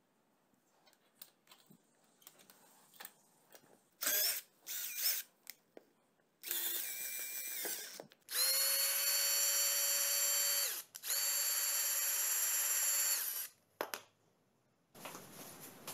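Cordless drill driver winding a scissor car jack's screw through a hooked crank rod: a few short trigger bursts, then long runs of steady motor whine lasting a couple of seconds each, separated by brief pauses.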